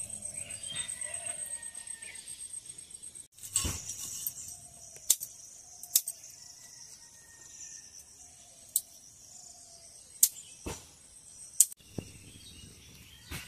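Several sharp cracks and clicks of dry twigs being handled and laid into a clay cooking stove, over a steady high drone of insects and a few faint bird chirps.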